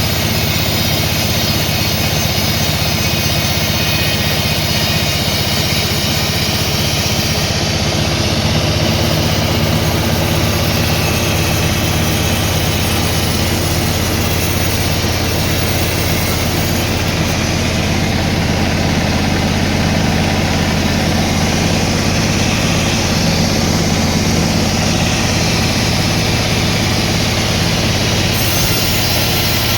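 Sawmill machinery running steadily, an engine-driven drone with no pauses.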